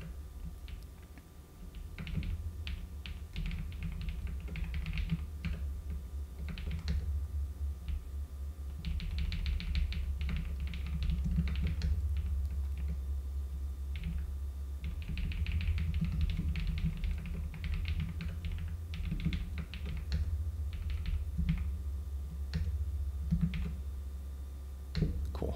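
Typing on a computer keyboard: irregular key clicks with quick runs of keystrokes, over a steady low hum.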